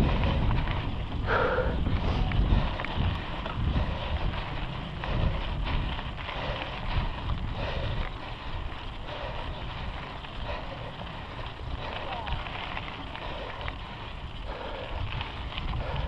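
Mountain bike ridden fast over a rough dirt singletrack: wind buffeting the camera's microphone over the rumble and rattle of the tyres and bike on the trail.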